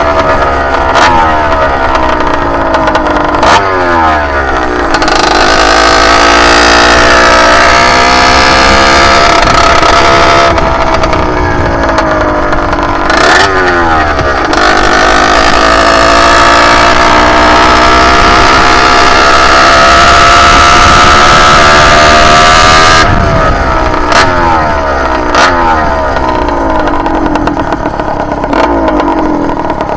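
Small two-stroke motorized-bike engine under way, revving up and dropping back several times, with a long stretch held at high revs. It is still in break-in and jetted very rich, which makes it run choppy and break up at the top end.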